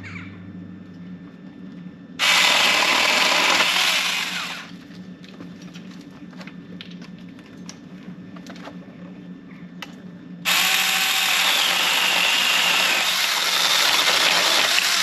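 Saker 18-volt cordless mini chainsaw cutting through apple branches in two bursts: a short run of about two seconds a couple of seconds in, then a longer run starting about ten seconds in. Both start suddenly.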